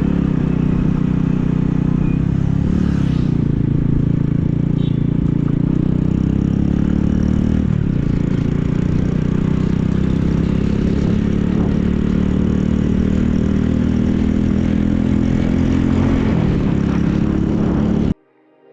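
Motorcycle engine running while riding, its pitch drifting slightly up and down over road and wind noise; it cuts off suddenly near the end.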